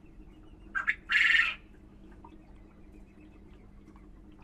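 A bird calling about a second in: a short note, then a louder harsh call lasting about half a second. Faint high chirping goes on steadily underneath, about six chirps a second.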